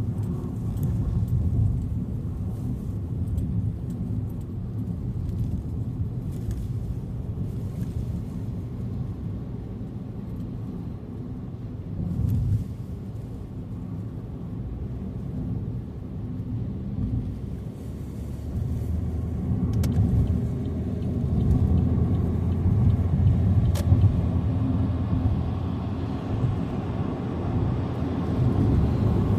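Road noise of a car being driven: a steady low rumble of engine and tyres, growing a little louder in the second half.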